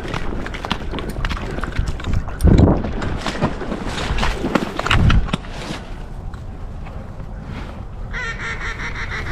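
Rustling movement, with wind buffeting the microphone twice. Near the end comes a short, nasal, pulsing waterfowl call.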